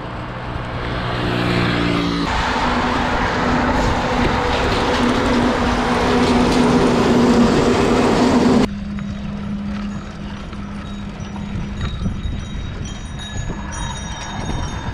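Road traffic heard from a moving bicycle: a truck's engine and tyre noise swells louder as it passes close alongside, then cuts off abruptly. After that comes quieter road noise with a steady low hum of distant traffic.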